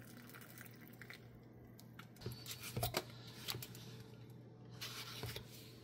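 Faint handling noise as a plastic yogurt cup is picked up off a breakfast tray: a few soft clicks and rustles about two to three seconds in and again near the end, over a low steady hum.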